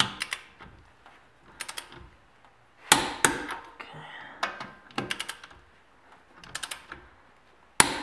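Torque wrench tightening wheel bolts to 103 ft-lb in a star pattern: sharp metal clicks in short groups, about six times, each time a bolt is drawn down to torque.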